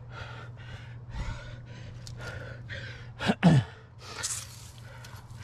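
A rock climber breathing hard and fast while straining up a crack, with a loud gasp that falls in pitch about three seconds in, then a sharp hissing exhale just after.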